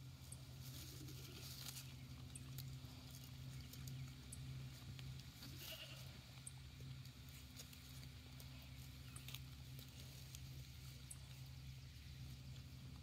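Goats grazing close by: faint scattered clicks of grass being torn and chewed over a steady low hum.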